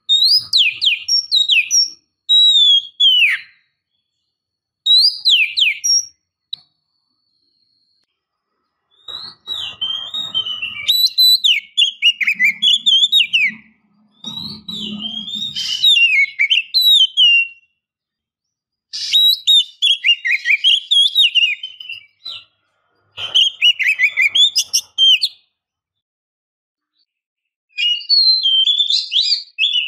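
Oriental magpie-robin (kacer) singing its full, loud 'ngeplong' song: bursts of fast, twisting whistled and chattering phrases, each a second to several seconds long, broken by pauses of one to three seconds.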